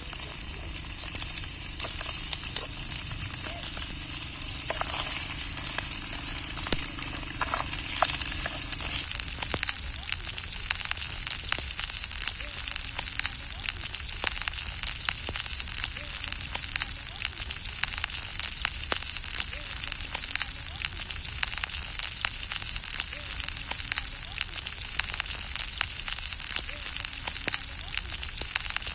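Food frying in hot oil in a pan: a steady sizzle with many small crackles, easing a little about nine seconds in.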